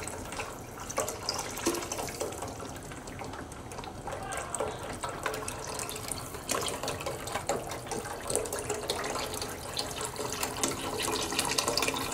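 Chicken stock poured in a continuous stream from a cardboard carton into a large stockpot of thick gumbo base, splashing steadily into the liquid.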